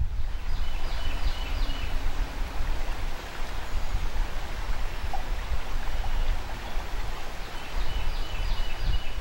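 River water running steadily, a continuous rushing noise with a strong low rumble. A short run of high chirps sounds near the start and again near the end.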